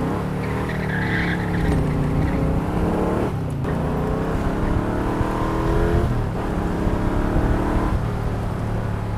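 Shelby Cobra's 427 cubic inch V8 accelerating hard through the gears. Its revs climb, drop briefly at a gear change about three and a half seconds in and again about six seconds in, and hold steady near the end.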